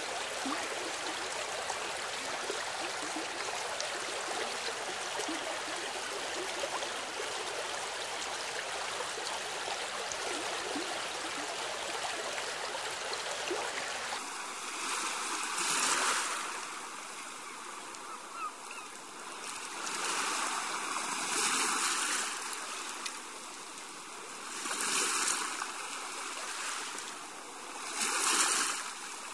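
Steady rushing, stream-like water. About halfway through it changes to surf-like washes of water that swell and fade every three to four seconds.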